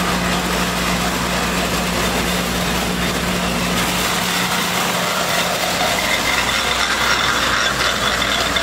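Animal-feed pellet mill running steadily: a motor hum under dense mechanical noise, the hum easing about halfway through as the noise grows brighter toward the end.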